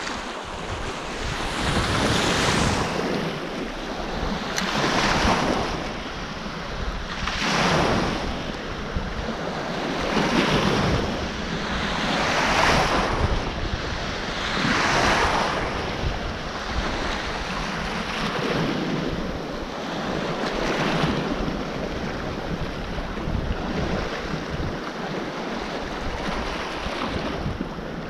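Small waves washing and breaking in the shallows, swelling and fading about every two to three seconds, with wind rumbling on the microphone.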